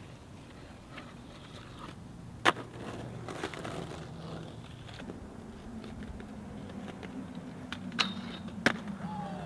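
Skateboard wheels rolling on concrete, with sharp clacks of the board: a loud one about two and a half seconds in and two more close together near the end, as a skater hits a low metal handrail.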